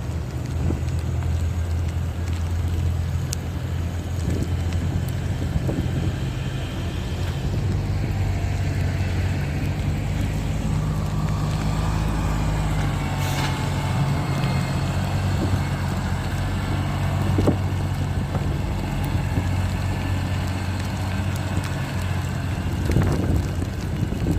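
Street traffic: a large vehicle's engine running steadily close by, with faint higher whines rising and falling around the middle.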